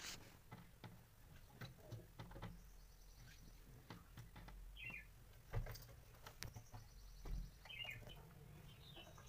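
Small birds chirping faintly outside: a few short clusters of quick chirps, with soft knocks and rustles close to the microphone and one louder knock a little past halfway.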